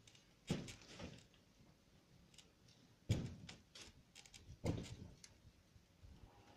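Knocks and clatter of the canopy's frame pieces being pulled loose and handled during dismantling: three heavy thuds, about half a second in, just after three seconds and near five seconds, each followed by a short rattle, with lighter clicks between.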